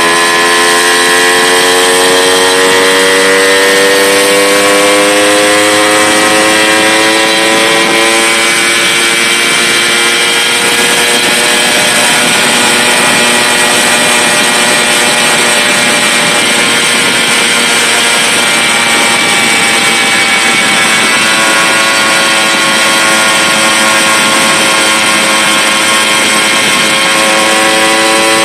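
Tomos Targa moped's 49cc two-stroke single-cylinder engine running on the road, its pitch climbing slowly over the first several seconds and again near the end.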